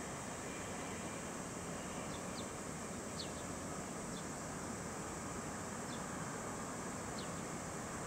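Steady outdoor ambience: a constant high insect drone over a low, even hum, with about six short, falling bird chirps scattered through it.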